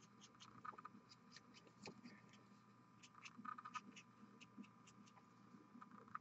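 Near silence: faint scattered ticks and light scratching from a fine paintbrush and fingers working on a small miniature, over a faint steady hum.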